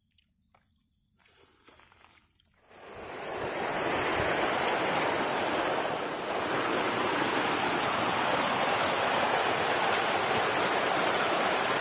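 Near silence at first, then about three seconds in a steady rush of water cascading down a rocky stream or small waterfall fades in and holds.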